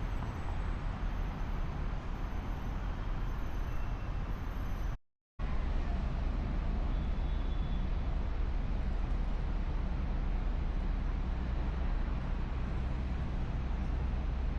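Steady city road traffic noise with a low rumble of passing vehicles. The sound cuts out completely for a fraction of a second about five seconds in, then the same traffic noise resumes.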